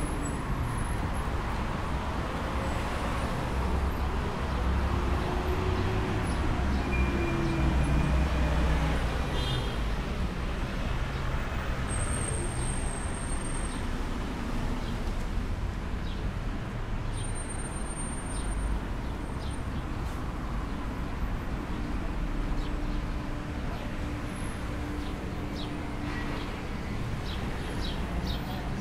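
Road traffic passing on the street beside the sidewalk, a steady low rumble of car engines and tyres, swelling as a vehicle goes by about five to nine seconds in.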